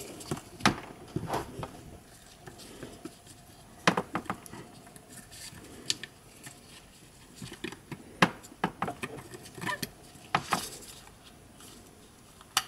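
Irregular small clicks and taps of a plastic speaker housing and circuit board being handled, as small wire connectors are pressed into their sockets on the board, with a few sharper clicks among them.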